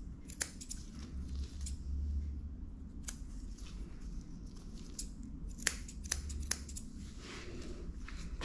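Grooming scissors snipping through dog fur: a few sharp, separate snips, three of them in quick succession about six seconds in, over a low steady hum.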